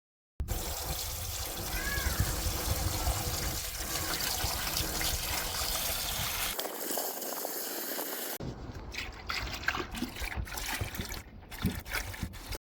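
Liquid trickling, as a steady noisy wash with some scattered ticks and splashes.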